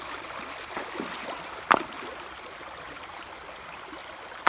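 Shallow river water running steadily over stones, with a few short sharp splashes of a child's feet stamping in the water, the loudest about a second and a half in.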